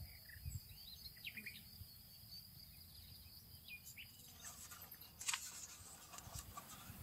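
Faint small birds chirping now and then over a steady high-pitched insect buzz that stops about four seconds in. A book page turns about five seconds in.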